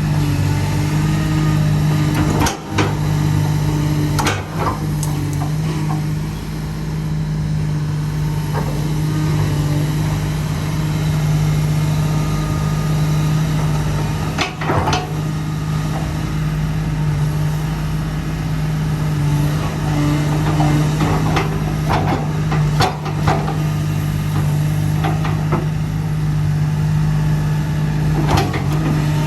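2008 Komatsu PC300LC-8 excavator's six-cylinder turbo diesel engine running at a steady idle. About five short, sharp knocks stand out over the hum.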